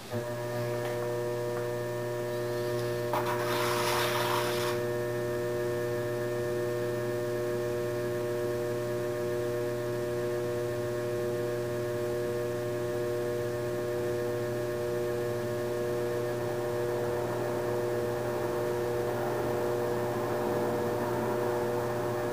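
Electric potter's wheel motor humming steadily as the wheel spins, with a short hiss about three seconds in and a soft rubbing noise near the end as hands and a tool work the wet clay.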